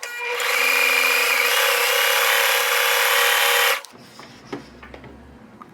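Electric sewing machine running at speed under the foot pedal, its needle stitching zigzag through paper, for nearly four seconds before it stops abruptly. A few faint clicks follow.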